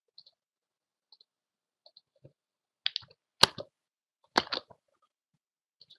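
Computer mouse clicks and keyboard key presses, scattered and faint at first, with the loudest few clicks bunched about three to four and a half seconds in.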